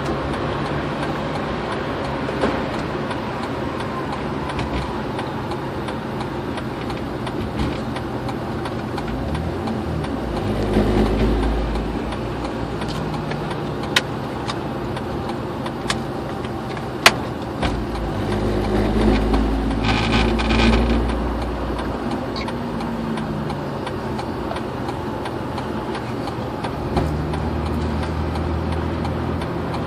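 Steady engine hum and tyre and road noise inside a car's cabin while driving at highway speed. The low rumble swells louder twice, about a third of the way in and again past the middle, and a couple of sharp single clicks sound just before the middle.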